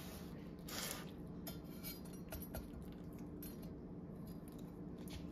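Faint handling of kitchen utensils on a counter: a few light, scattered clicks and clinks, the clearest about a second in, over a steady low hum.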